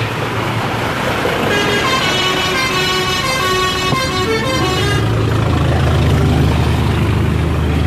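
A bus's telolet horn, a multi-tone musical air horn, plays a short tune of stepped notes for about three seconds. About five seconds in, a heavy bus engine's low drone takes over and grows louder.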